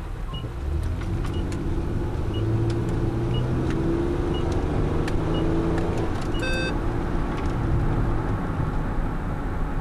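Dodge Grand Caravan minivan pulling out and accelerating, its engine and road noise heard from inside the cabin. The turn signal ticks about once a second, and a short electronic beep sounds about six and a half seconds in.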